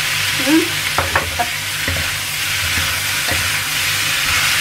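Beef ribs, onions and chillies sizzling in a stainless steel wok while a spatula stir-fries them, with a steady frying hiss and the spatula knocking and scraping against the pan several times.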